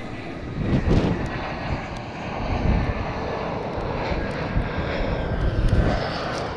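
Twin-engine Airbus A320-family jet airliner passing low overhead on final approach, gear down: a steady jet engine noise with a faint high whine over it and a swelling low rumble.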